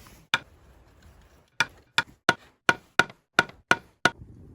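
Hard knocks of wood being struck, nine in all: a single blow, then after a pause a steady run of eight blows at about three a second.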